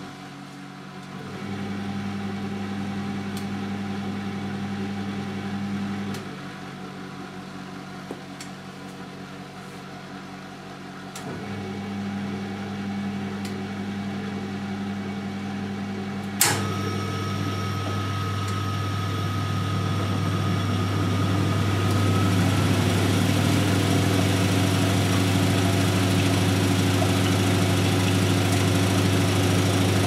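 Siemens Siwamat 960 front-loading washing machine in its intermediate spin. The drum motor hums in two spells of about five seconds with pauses between. About halfway through there is a click, then the spin builds up over several seconds with a faint whine and settles into a louder, steady spin.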